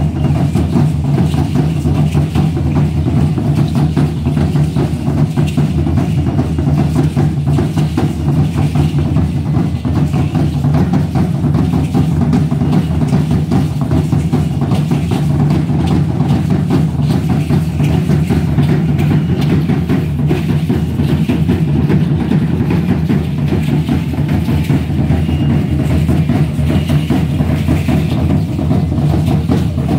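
Aztec dance drumming: large drums beaten continuously in a fast, dense rhythm with a heavy low boom.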